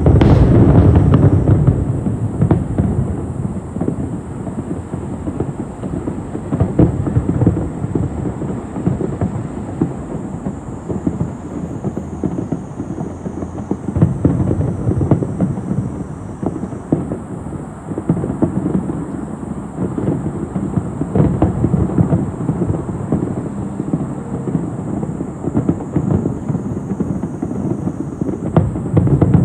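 Aerial fireworks bursting in quick succession: a continuous rumble of deep booms mixed with crackling. It is loudest in the first second or so and swells again near the end.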